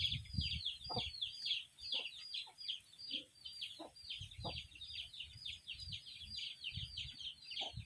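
Chicks peeping continuously in a quick, steady run of short, high, falling peeps. Underneath are scattered low, soft knocks of a knife working a frog against a wooden block.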